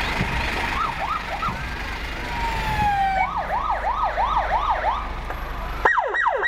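Emergency-vehicle electronic sirens yelping in quick rising-and-falling sweeps, about three a second at their fastest. A long falling tone comes just before the fastest run. Near the end a different siren cuts in, its sweeps dropping steeply.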